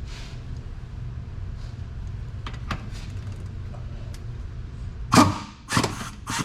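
Metal tool work on a car's rear suspension: a couple of light clicks, then three loud, short bursts of clatter near the end, over a steady low hum.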